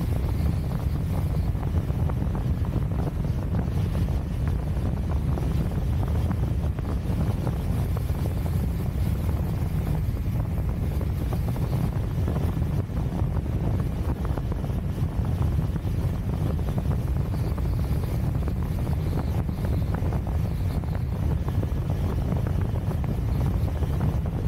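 Steady wind noise from the airflow of a fast speedflying glide buffeting the camera's microphone, mostly a low rumble.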